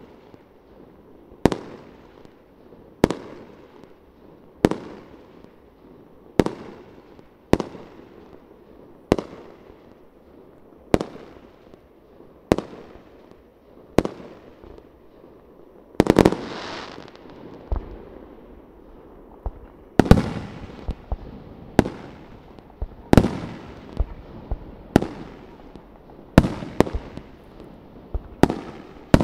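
Aerial firework shells bursting one after another, a sharp bang about every second and a half, each trailing off in an echo. About sixteen seconds in, one longer, louder burst, and in the last third the bangs come faster, some in quick pairs.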